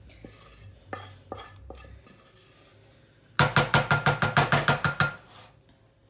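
A wooden spoon scrapes sticky dumpling mixture from a saucepan with a few soft clicks. Past the middle it is knocked rapidly against a rim, about fourteen quick ringing knocks in under two seconds, to shake the mixture off.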